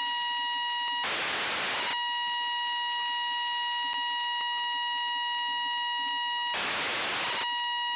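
Received FM downlink audio from the AMSAT-OSCAR 92 (Fox-1D) satellite: a steady high tone with overtones. Twice it drops out into about a second of loud receiver hiss, typical of the signal fading briefly during the pass.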